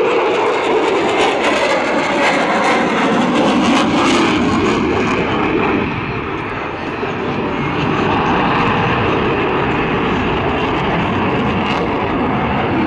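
Jet noise from an F-22 Raptor's twin Pratt & Whitney F119 engines as it flies its display overhead. There is a crackling edge in the first few seconds, a brief dip around six seconds as it turns away, then steady again.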